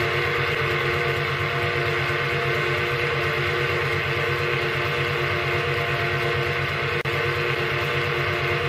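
Donkey (piston) water pump driven by an electric motor through a V-belt, running with a steady mechanical hum; the pump has been freshly rebuilt with a new crank set. There is a brief break in the sound about seven seconds in.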